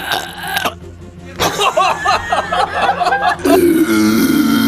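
A person's voice making a wavering, rapidly trilling laugh-like sound, then a long, low, drawn-out vocal sound starting about three and a half seconds in.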